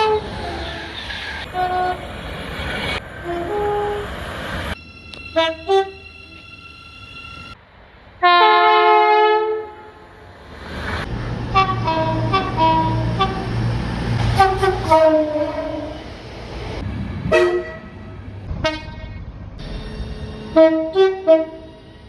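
A string of short clips of British train horns: multi-note horns sounded in short toots and longer held blasts, one note sliding down in pitch near the start. In the middle stretch a low engine rumble runs under a quick series of short horn toots.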